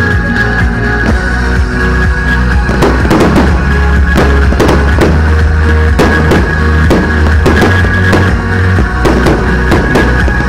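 Loud rock-style music with heavy bass and drums; a sharp, regular drum beat comes in about three seconds in. Firework shells burst over it.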